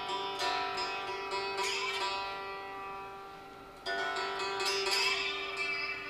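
Homemade fretless solid-body resonator guitar, with a strainer-bucket lid as its resonator and tuned to open G (G-D-G), being picked: chords ring out with a tinny tone. Fresh strikes come just after the start and a little past halfway, and a note glides up in pitch in between.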